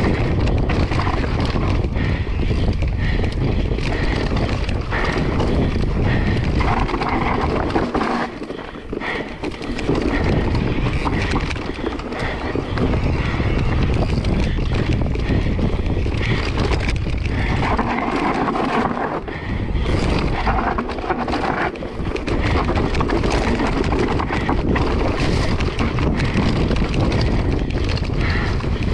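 Wind buffeting the microphone over the rattle and tyre noise of a mountain bike ridden fast down a trail. The wind rush eases briefly twice.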